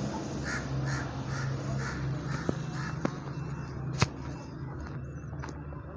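A crow cawing in a quick series, about two caws a second, through the first half, over a steady low hum. A single sharp knock about four seconds in.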